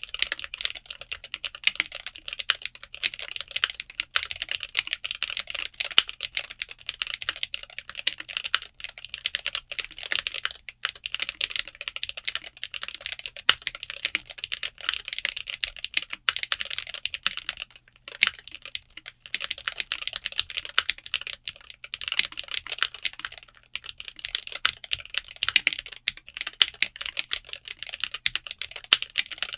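Fast, continuous typing on a MelGeek Made68 Pro keyboard fitted with Gateron Magnetic White magnetic (Hall effect) switches: a dense stream of key clacks, broken by a couple of brief pauses in the second half.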